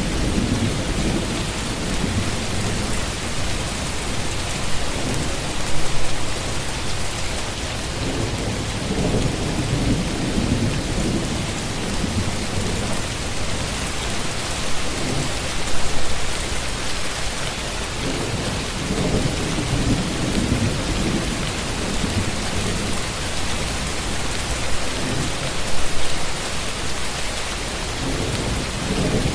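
Steady heavy rain falling, with low rumbles of thunder swelling up several times.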